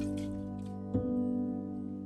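Soft background music with sustained tones, with one brief sound about a second in, likely from the fermenting rice mash being handled in the crock.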